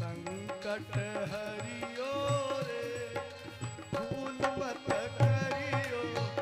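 Devotional kirtan music: a harmonium playing sustained chords under a man's sliding, ornamented singing, with a hand drum keeping a steady beat.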